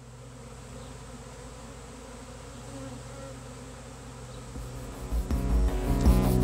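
A mass of honeybees buzzing in a steady hum. About five seconds in, louder music with a steady beat comes in over it.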